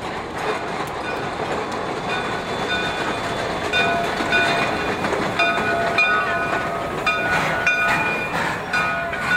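Narrow-gauge steam train rolling slowly past at close range, with high metal-on-metal squeals that come and go over a steady rumble.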